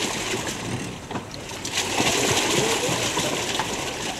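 Water splashing and sloshing around a pedal-driven amphibious boat moving on the water.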